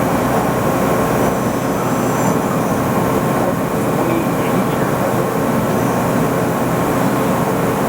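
Nakamura WTS-150 multi-turret CNC turning center running a machining cycle: a loud, steady mechanical noise with a few faint steady tones held through it.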